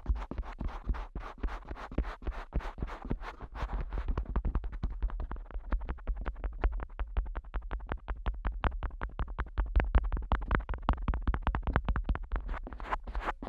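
Fingertips tapping and flicking rapidly at the ears of a Neumann KU100 dummy-head microphone, several sharp taps a second, each with a deep thump from pressing right on the ear over the capsule.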